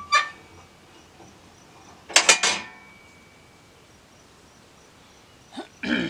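Three quick, sharp metallic clanks about two seconds in, leaving a short ringing tone, with a single clink at the start and another knock near the end: steel parts of a portable band sawmill being handled while its engine is off.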